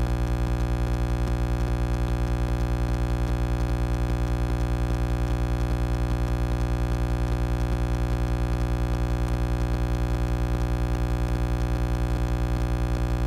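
A loud, steady electronic buzz with many overtones and a fast, even pulse, switching on and cutting off abruptly. It is not a sound of the repair work.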